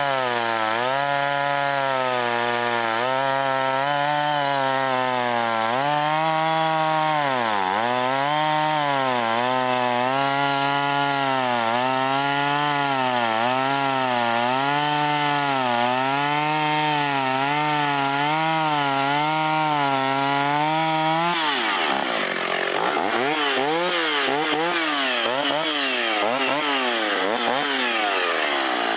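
Vintage Stihl chainsaw cutting through a log, its engine working hard: the pitch sags and recovers every second or two as it bogs under load. About 21 seconds in the pitch starts swinging up and down more widely and quickly.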